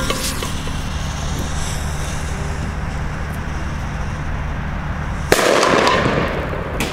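A Super 2 firecracker going off inside a stainless steel cooking pot: its fuse hisses for a few seconds, then about five seconds in comes a single loud bang that dies away over about a second and a half.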